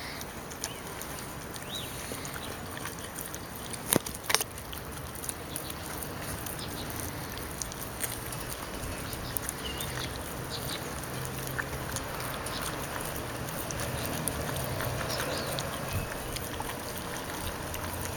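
Two Welsh springer spaniels licking and eating a soft cake: wet lapping and chewing with many small clicks, and two sharp clicks close together about four seconds in.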